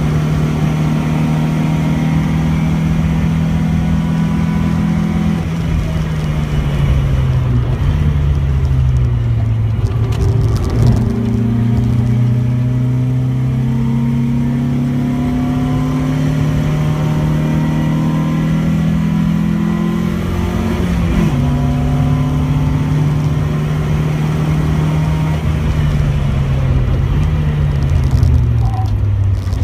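Opel Manta 2.0 GSi's four-cylinder engine heard from inside the cabin on a circuit lap. The revs fall about six seconds in as the car brakes for a corner, climb again from about ten seconds as it pulls out, and drop sharply around twenty-one seconds. Near the end they fall again as it slows for the next corner, over steady road and tyre noise.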